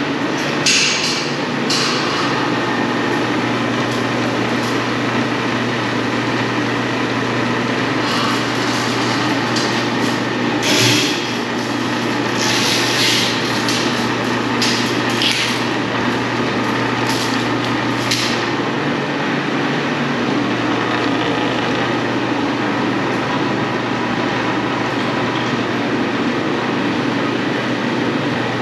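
Steady machine noise with a constant low hum, broken by short bursts of hissing during the first half.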